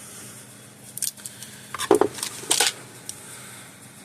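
Small hard objects clicking and clattering on a workbench: a few short knocks about a second in and a cluster around two to two and a half seconds, over a low steady hiss.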